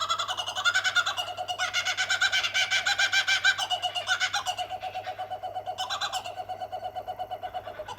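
Two laughing kookaburras calling together in a long run of rapid, repeated chuckling notes. The call is loudest midway, then fades and stops just before the end.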